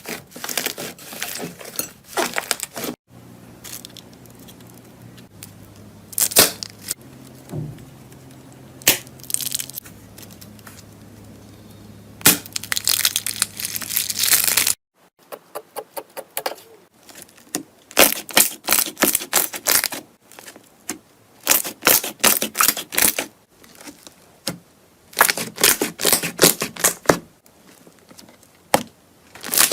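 Slime being squeezed and pressed by hand, with runs of sharp crackling and crunching pops, typical of crunchy slime.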